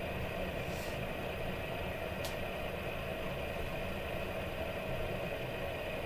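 Fidget spinner spinning steadily on its bearing: a constant whir over a low hum, with one small sharp click about two seconds in.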